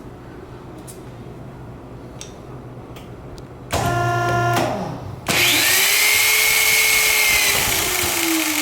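Power drill driving an M5.5x55 steel self-drilling screw. The motor whines up for about a second, then about halfway through the loud grinding of the screw's drill point cutting in begins, with a high squeal and the motor's pitch slowly sinking under the load.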